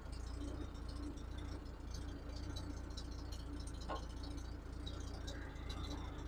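1946 Chevrolet grain truck's inline-six engine idling low and steady. A faint click about four seconds in.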